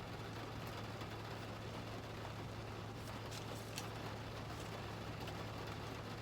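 Rain pattering on a car's roof and windshield, heard from inside the cabin as an even hiss with scattered faint drop ticks, over a steady low hum from the car.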